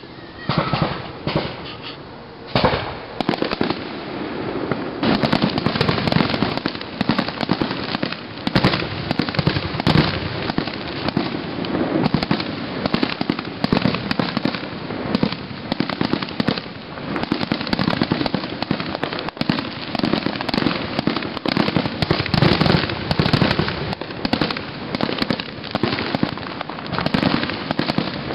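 Aerial fireworks shells bursting one after another: a few separate bangs in the first few seconds, then near-continuous bangs and crackling from about five seconds in.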